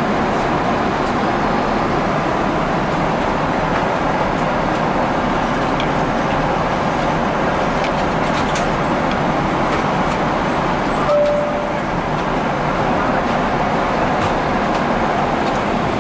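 Steady cabin noise of a Boeing 777-300ER airliner in flight: an even rushing of airflow and engines. A short single tone sounds about eleven seconds in.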